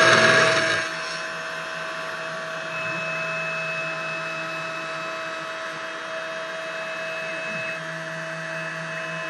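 CNC 1610 Pro router's spindle running with a 3 mm end mill. It is loud and rough at first, then about a second in it drops to a quieter, steady motor whine with several fixed tones. A thin high tone is added from about three seconds to eight seconds in.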